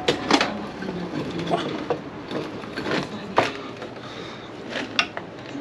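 Metal parts knocking and clicking as a rear drive shaft is worked into its hub carrier on an MG TF subframe: about eight sharp knocks at irregular intervals, with handling noise between them.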